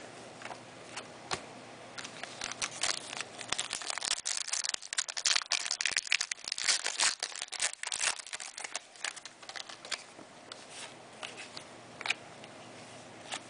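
Trading-card pack wrapper being torn open and crinkled: a dense run of crackling that builds about two seconds in and dies away around ten seconds, with a few single clicks either side.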